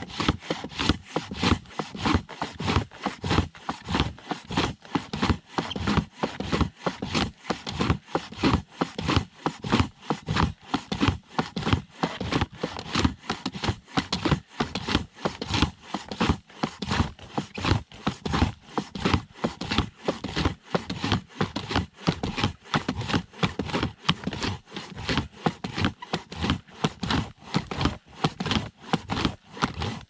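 Silky Katana Boy 650 folding handsaw cutting through a tree trunk, its teeth rasping through the wood in a steady back-and-forth rhythm of about two strokes a second.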